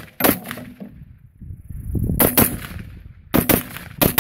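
Semi-automatic Battle Rifle Company BR308, a 12.5-inch AR-10-style rifle in 7.62x51 NATO/.308 with a muzzle brake, firing a string of loud shots, several in quick pairs, each followed by an echo.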